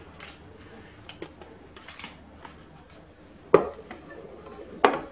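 Kitchen bowls and utensils being handled on a counter: scattered light clicks and rustles, then two sharp knocks, one about three and a half seconds in and one near the end.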